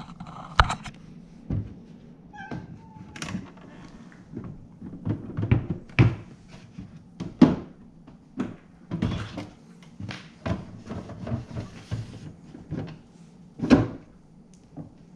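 Clear plastic step filter of a Picobrew Z1 brewer being lifted out and slid back into the machine: a string of separate plastic knocks, clunks and scrapes, with a short squeak about two and a half seconds in.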